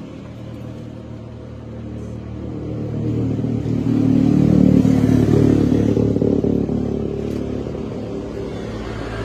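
A motor vehicle's engine running, growing louder to a peak around the middle and then fading away.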